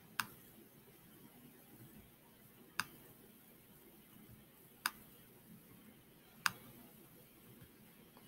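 Four sharp computer mouse clicks, irregularly spaced one to three seconds apart, over faint room tone.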